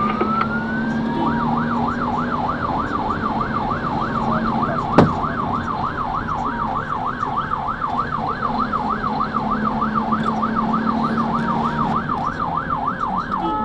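Fire engine's siren heard from inside the cab: a rising wail in the first second, then a fast yelp sweeping up and down about three times a second, over a steady low drone. A single sharp click about five seconds in.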